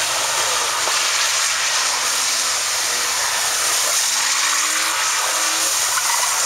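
BMW E36 3 Series drifting in circles on wet asphalt: a loud, steady hiss of spinning tyres and spray, with the engine faintly rising in pitch beneath it about two-thirds of the way through.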